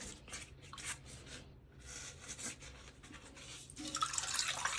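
A sponge rubbing and scraping against the inside of a porcelain toilet tank as it soaks up the last of the water. A louder rush of water starts near the end.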